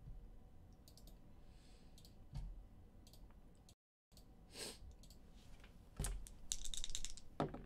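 Scattered computer mouse and keyboard clicks, with a denser run of rapid clicks about six seconds in.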